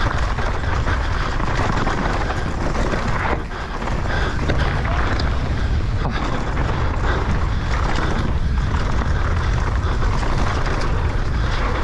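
Mountain bike descending a dirt trail at speed: wind buffeting the camera's microphone, with tyre noise and many quick rattles and knocks from the bike over rough ground, easing briefly about three seconds in.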